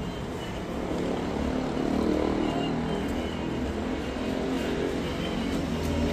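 Motor traffic: a vehicle's engine rumble growing louder about a second in and staying up.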